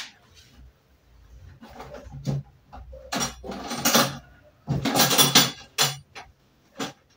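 A kitchen window curtain being pulled along its rail, the hooks rattling and scraping in three short bursts with a few clicks between.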